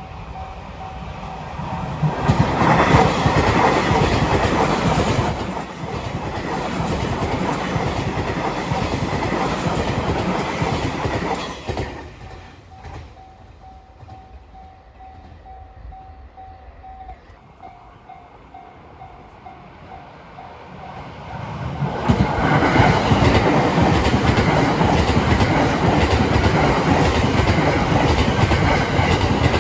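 Train wheels clattering loudly over the rail joints at a level crossing, a dense clickety-clack that dies down about twelve seconds in and comes back about ten seconds later. In the quieter stretch between, the level-crossing warning bell rings in a steady, even pulse.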